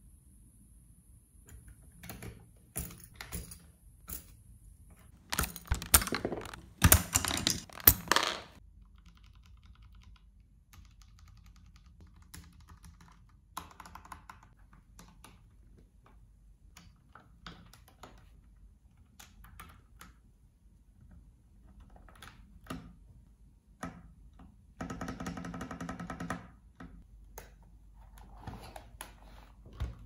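Plastic clicks and clacks of keycaps being handled, pressed onto a mechanical keyboard's switches and tapped. The clacks come scattered, with a dense, loud run about five to eight seconds in and another dense stretch near the end.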